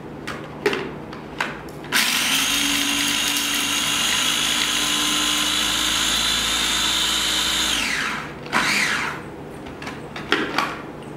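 Small electric food processor chopping fresh herbs. A couple of clicks as the lid is fitted, then the motor runs steadily with a high whine for about six seconds and winds down with a falling pitch. A few clatters and clicks follow as the bowl and lid are handled.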